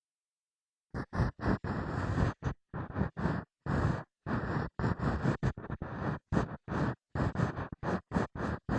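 Ear pick (mimikaki) scraping and rubbing in an ear, in short repeated strokes about two or three a second, starting about a second in after a moment of total silence.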